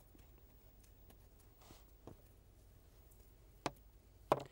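Quiet bench with a few faint ticks from a small screw and washer being handled on a cutting mat. One sharp click comes about three and a half seconds in, and a voice starts just before the end.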